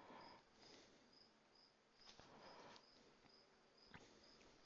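Near silence: faint room tone, with a faint high-pitched chirp repeating about twice a second.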